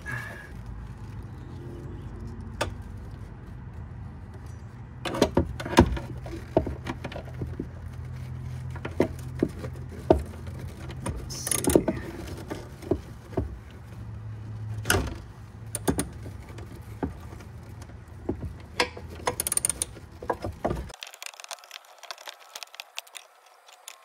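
Irregular metallic clicks, clinks and knocks of hand tools and bolts as two bolts are worked loose from the back of a mounting bracket. A steady low hum runs underneath and cuts off near the end.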